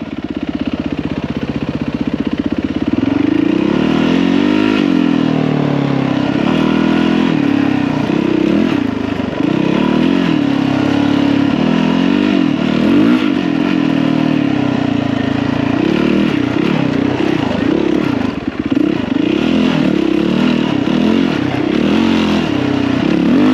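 Yamaha WR450F dirt bike's single-cylinder four-stroke engine running under riding load, its revs rising and falling every second or two as the throttle is opened and closed.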